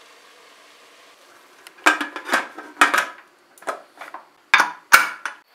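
Stainless-steel pressure cooker lid being set on the cooker and worked into place: a run of metallic clanks and scrapes starting about two seconds in, the two sharpest clunks near the end as the lid seats.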